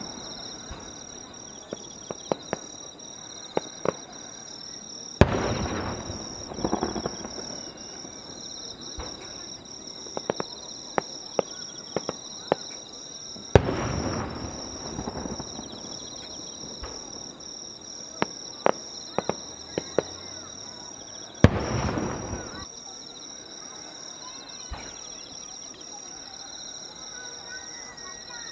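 Firework shells bursting overhead: three big bangs about eight seconds apart, each trailing off in a long echoing rumble, with clusters of smaller sharp cracks in between. A steady high insect trill runs underneath.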